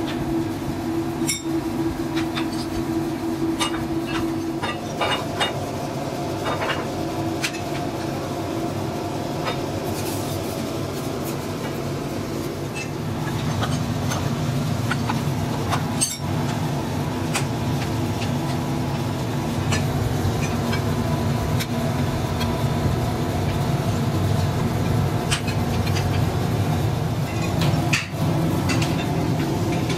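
Steady low rumble of workshop machinery, louder from about halfway through. Scattered metallic clanks and knocks sound over it as the steel lid clamps of a vulcanizing drum are struck with a bar, and later as firewood is stacked into a boiler's firebox.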